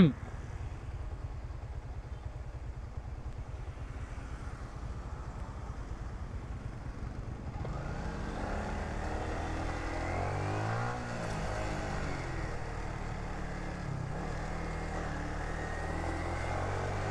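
Motorcycle engine pulling away at low speed under a low rumble. About halfway through it speeds up, louder, its pitch rising and falling through gear changes.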